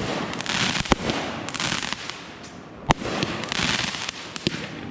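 Consumer aerial firework cake going off: a steady crackling, sizzling haze of breaking shells, cut by two sharp booms about a second and three seconds in, and a few smaller pops near the end.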